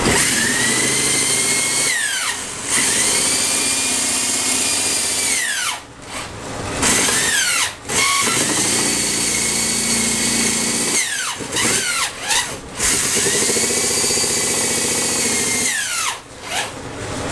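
Electric drill run in repeated bursts. Each time the motor spins up to a steady whine, holds it, then winds down when it stops; there are four longer runs with a few quick on-off blips just past the middle.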